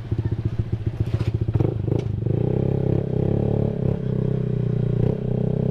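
Honda ADV 150 scooter's single-cylinder engine through an aftermarket R9 Alpha Series exhaust with the dB killer removed, running. It chugs with an even pulsing beat, then about a second and a half in the revs rise into a steady, full exhaust note as it pulls away, easing off briefly twice near the end.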